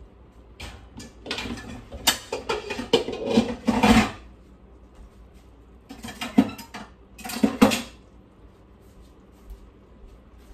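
Dishes and cutlery clattering: two spells of knocks and clinks, the first starting about a second in and lasting some three seconds, the second around six to eight seconds in.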